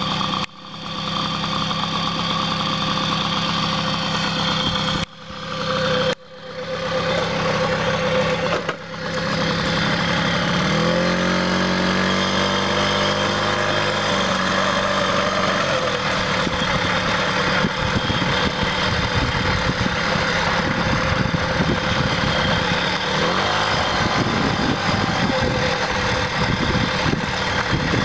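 Stock 1978 JCPenney Pinto moped's small Kromag two-stroke engine idling steadily, then revving up with a rising pitch about eleven seconds in as it pulls away. It then runs along at riding speed, rougher and noisier, with wind on the microphone.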